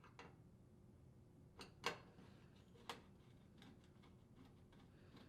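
A few faint, sharp clicks and taps from a Phillips screwdriver working the screws that hold down the range's main top, the loudest a single tap about two seconds in, followed by softer ticks.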